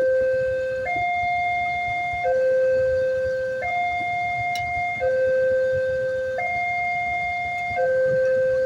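Railway level-crossing warning alarm sounding a steady electronic two-tone hi-lo signal, switching between a higher and a lower tone about every one and a half seconds, which signals that a train is approaching. A low rumble runs underneath.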